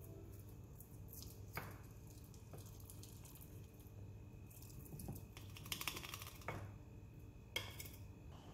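Knife cutting soft beaten-rice burfi on a ceramic plate: a few faint, sharp taps and scrapes of the blade against the plate, with a small cluster of them past the middle.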